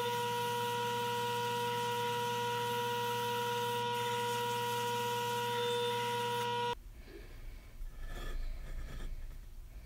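Drill press running with a steady whine, a pencil chucked in its spindle and turned down against a hand-held sanding disc, the drill press used as a lathe. The running sound cuts off suddenly about seven seconds in, leaving faint handling sounds.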